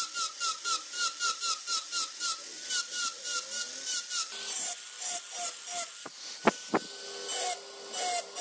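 Handheld rotary tool with a fine pointed bit grinding small dimples into a brass dagger guard plate, in short bursts about four a second, slowing to about two a second in the second half. A few sharp clicks come between the bursts.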